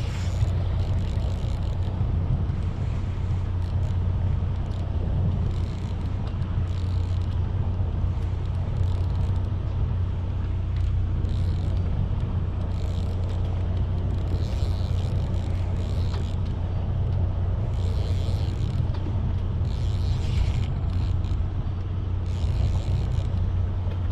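Steady low hum of a fishing boat's engine, with short patches of hiss from wind and water coming and going over it.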